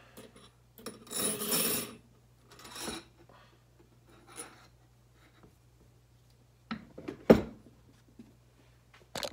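Paper rustling in a few short bursts as the pages of a service manual are leafed through, with one sharp knock on the workbench about seven seconds in.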